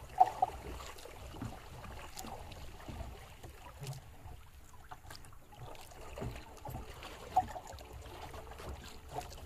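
Sea water lapping against a small outrigger boat's hull, with wind rumbling on the microphone. A few short, sharp knocks stand out, the loudest just after the start and again about seven seconds in.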